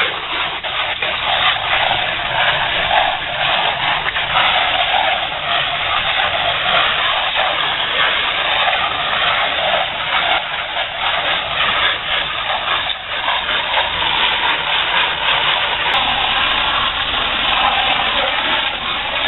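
Pressure washer running, with a steady hiss of water spray over a low machine rumble.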